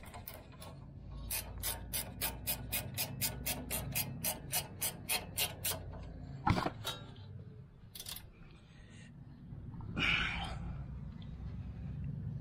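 Stubby ratchet spanner clicking, about four clicks a second for several seconds, as a nut on the front suspension is worked, followed by a single knock and some handling noise.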